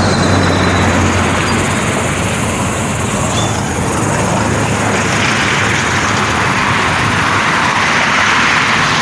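Steady road traffic noise, with a vehicle engine's low hum in the first second or so and tyre hiss growing brighter near the end.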